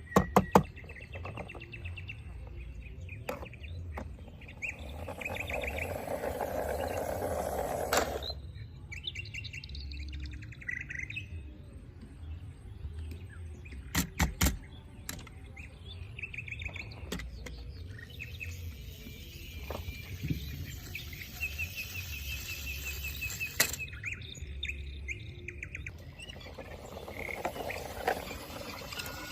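Birds chirping in repeated short runs of high notes, with a few sharp clicks and knocks, including a cluster near the start and another about 14 seconds in.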